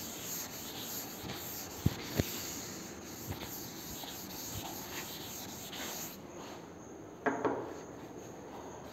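Chalkboard eraser rubbing chalk writing off a blackboard: a steady scrubbing with a couple of light knocks about two seconds in, stopping about six seconds in.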